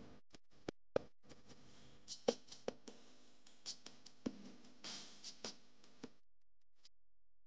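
Irregular clicks and knocks, a dozen or so sharp ones, over a faint low background; they stop about six seconds in.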